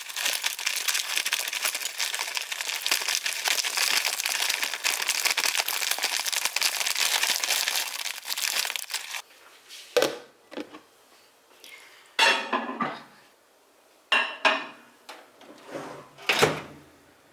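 Kitchen food-prep sounds: a steady crinkling, crackling rustle for about nine seconds that stops suddenly, then several separate clinks and knocks of dishes and utensils, some ringing briefly.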